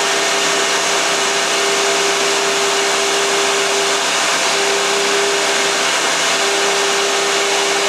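CNC milling machine's 3 hp spindle turning a 45-degree chamfer tool at 6,000 RPM, chamfering the top edge of a metal part under flood coolant. The whir of the cut and the hiss of the splashing coolant are steady and loud, with one steady tone that breaks off briefly twice, about four and six seconds in.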